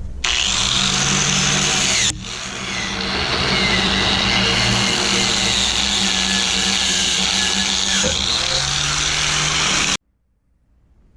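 Stick welding arc crackling and hissing on an AC buzz-box welder, with a steady transformer hum beneath. The arc breaks briefly about two seconds in, then restarts and runs steadily until it cuts off sharply near the end. The electrodes are old, and the welder suspects they are damp.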